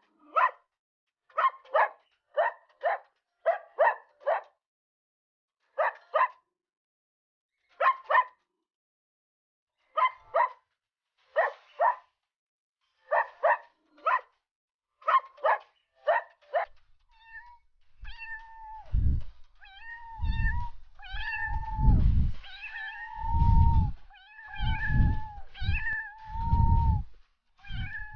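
Cat meowing in short, high calls, one after another with brief gaps, for the first two-thirds. After that come longer, drawn-out meows over a low rumble that swells and fades about once a second.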